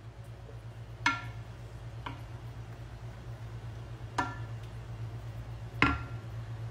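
Wooden spoon knocking four times against a pot while stirring, each knock ringing briefly, the ones about a second in and near the end the loudest. A steady low hum runs underneath.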